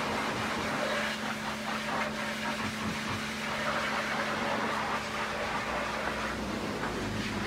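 A long-handled brush scrubbing soapy foam over the steel side of a dump-truck body, in repeated swishing strokes, over a steady machine hum.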